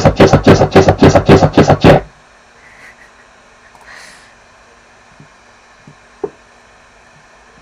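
A loud, chopped-up looping clip of a voice repeating '삭제' ('delete') over and over, about six sharp strokes a second, which cuts off abruptly about two seconds in. After it there are only a few faint knocks, with one louder knock about six seconds in.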